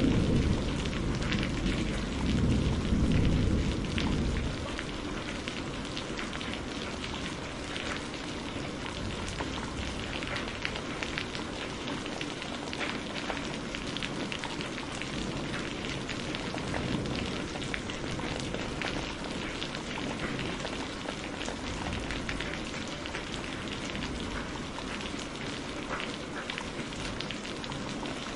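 Steady rain falling, a dense hiss of drops pattering on surfaces. A deep rumble of thunder dies away in the first four or five seconds.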